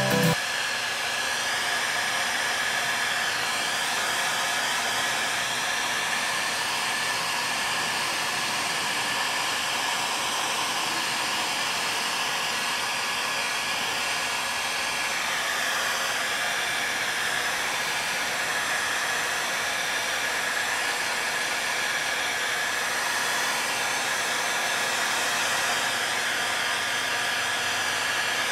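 Electric heat gun blowing hot air in a steady rushing hiss, its tone wavering slightly as the nozzle is kept moving over a kangaroo hide to melt grease into the leather.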